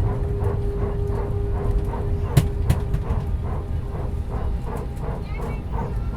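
Airbus A320 cabin on the ground after landing: steady engine rumble and hum, with a rapid pulsing bark repeating about three times a second, typical of the aircraft's hydraulic power transfer unit (PTU) during taxi. Two sharp clicks come near the middle.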